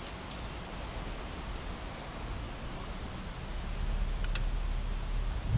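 Steady outdoor hiss of wind and rustling foliage, with a low rumble of wind on the microphone growing stronger in the second half. Two faint short high chirps, one just after the start and one about four seconds in.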